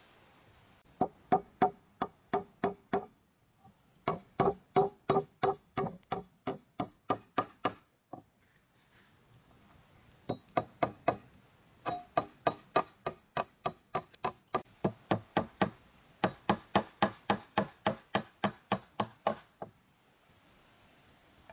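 A tool striking wood in rapid repeated blows, about four or five a second, each with a short ring. The blows come in five runs of roughly six to fourteen strokes, with brief pauses between them.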